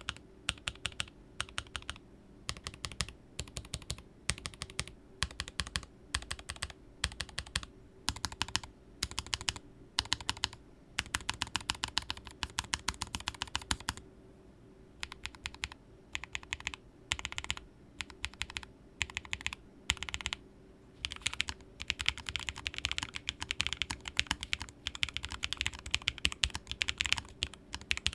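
Typing on a Lofree EDGE low-profile mechanical keyboard with Kailh POM 2.0 switches: quick runs of sharp key clicks in short bursts, with a pause of about a second halfway through and denser, faster typing near the end.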